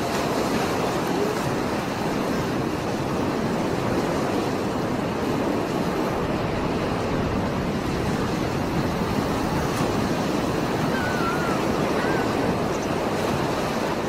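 Rough sea surf breaking and churning against a rocky shore: a steady, dense rush of water that keeps up without pause.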